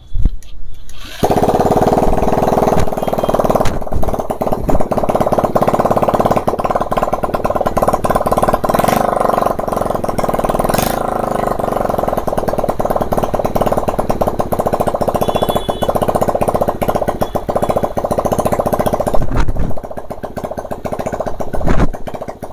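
Freshly rebuilt Bajaj Discover 150 single-cylinder four-stroke motorcycle engine, bare on a stand, electric-started from battery leads on its first run after assembly: it catches about a second in and runs steadily. It falls away near the end, with one short burst after.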